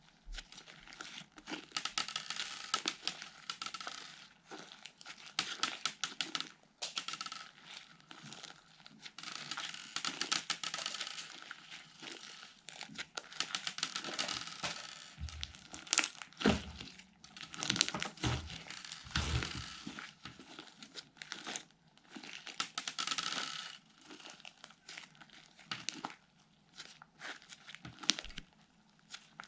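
Slime being worked by hand: crackling in repeated bursts of a second or two, with a few louder sharp pops about halfway through.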